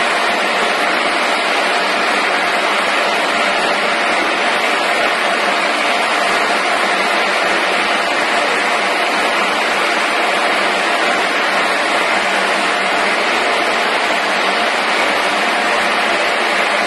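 Hot oil sizzling steadily in a continuous potato-chip fryer as potato slices fry on its stainless-steel mesh conveyor, with a faint steady machine hum underneath.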